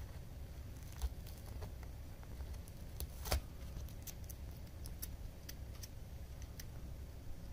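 Scattered faint clicks and crackles of corrugated cardboard as a cat tears at a shredded cardboard scratcher, with a sharper crack about a second in and a louder one a little after three seconds, over a steady low hum.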